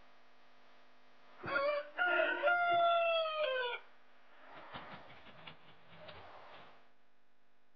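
A gamefowl rooster (ayam bangkok type) crowing once, about two seconds long: a short first note, then a long held note that drops in pitch at the end. Fainter short clucks follow.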